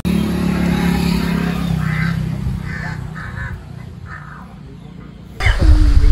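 A crow cawing about five times in quick succession over a low steady hum that fades away. Near the end a sudden louder low rumble cuts in.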